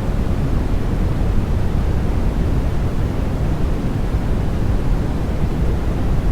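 Continuous synthetic noise for baby sleep, sold as white noise, running steady and unchanging. Most of its weight sits in a deep low rumble, with the hiss thinning toward the top.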